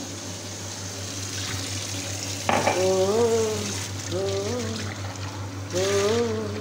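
Kitchen tap running into a stainless steel sink and splashing on a metal pan as a hand rinses it, the splashing getting suddenly louder about two and a half seconds in. From then on a man's voice hums a wavering tune over the water.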